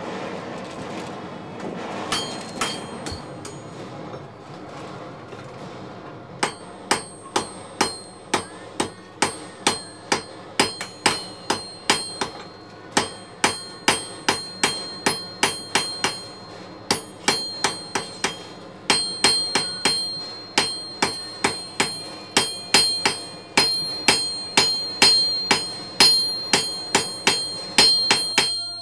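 A hammer striking metal in runs of blows, about two a second, each blow leaving a bright ringing tone. The blows take over about six seconds in, after a low background rumble with a few scattered knocks.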